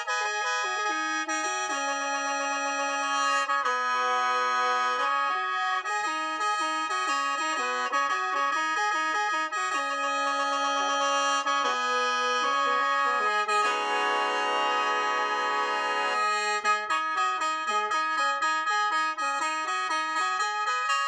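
Lao khaen, a bamboo free-reed mouth organ, playing a tune over steady drone notes, with a chord held for about three seconds in the middle.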